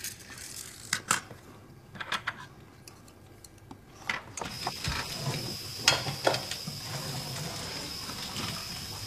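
A few light separate clicks and clinks, like dishes and cutlery being handled at a table. About halfway through, a faint steady high whine comes in over a low hum.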